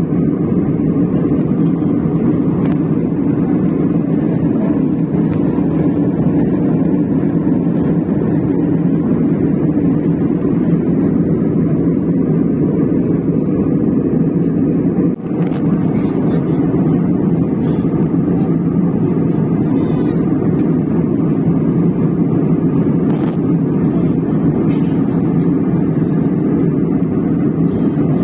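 Steady cabin noise of an airliner in flight, a low even rush of engine and airflow, with one brief dip about halfway through.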